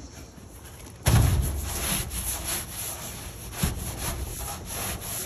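Rough scraping and rubbing strokes, the loudest about a second in, then repeating irregularly.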